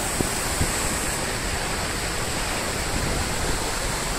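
Swollen, muddy floodwater pouring in a broad cascade over a drop, a steady rushing of water with no letup.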